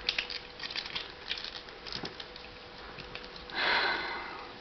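Small plastic clicks and ticks from a Transformers Cybertron Red Alert figure being handled, its joints moved during transformation, followed near the end by a soft hissing noise lasting about a second.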